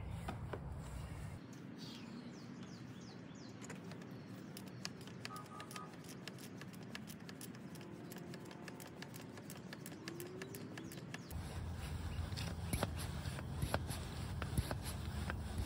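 Hand pump of a cooling-system pressure tester being worked, a long run of quick, regular clicks with each stroke as it pressurises the car's coolant system to find a leak.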